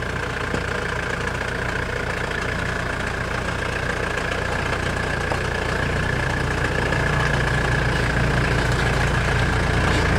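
Van engine running at a steady idle, getting a little louder from about seven seconds in.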